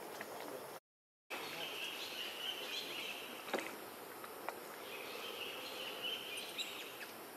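Forest ambience with insects droning in two stretches of about two seconds each, a steady high-pitched buzz, and a few faint clicks. The sound cuts out completely for half a second about a second in.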